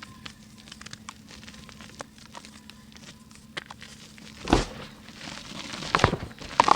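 Dry pink mud being crumbled by hand: a light, scattered crackle of small pieces breaking, then three louder crunches in the last two seconds or so.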